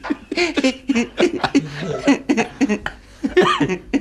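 A man laughing in quick bursts, with some mumbled talk mixed in.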